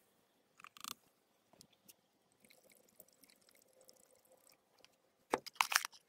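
A spoon scooping sodium metabisulfite powder and tipping it into a glass beaker of gold chloride solution to precipitate the gold. Faint crunchy scrapes and a few clicks, a light crackle in the middle, and a quick run of sharper clicks near the end.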